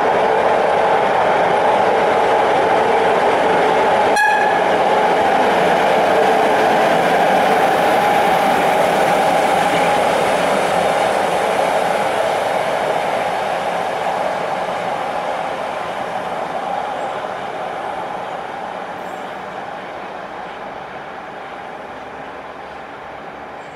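HŽ 2132 diesel shunting locomotive coupled to an HŽ 1141 electric locomotive running past on the rails, a steady loud engine-and-wheel noise that fades over the second half as the pair moves away. A single sharp click about four seconds in.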